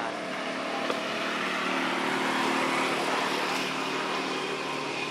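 A motor engine going past, its hum swelling to a peak about halfway through and then fading.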